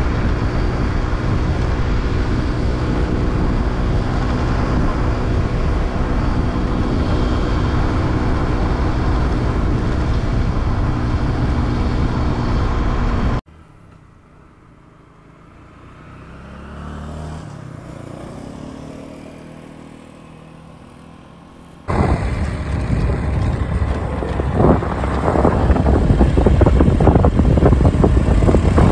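Motorbike running on the road, a loud steady engine note. It cuts off suddenly about halfway through to a much quieter stretch where an engine note rises and falls, then at about 22 seconds cuts back to loud, rough road noise.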